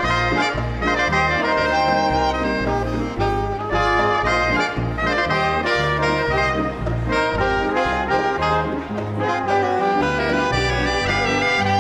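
Live big-band dance orchestra playing an instrumental passage: brass and saxophones hold sustained chords over a bass line that steps from note to note.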